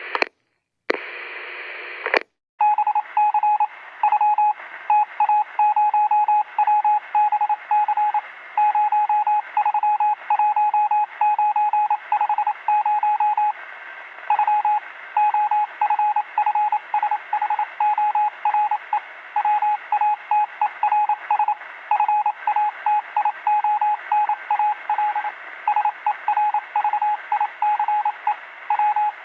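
Walkie-talkie squelch noise: two bursts of static, the second lasting about a second and a half and cutting off sharply. Then Morse code is received over the walkie-talkie: a single-pitched tone keyed on and off in dots and dashes over a steady radio hiss.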